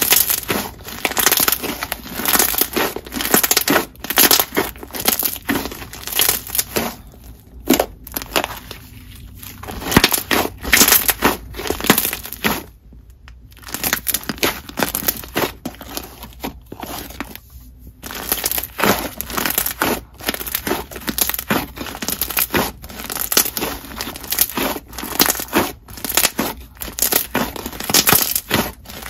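Thick, glossy semi-floam slime with marshmallow foam beads being squeezed, folded and pressed by hand, giving rapid crunches and bubble pops, with a brief pause about halfway through.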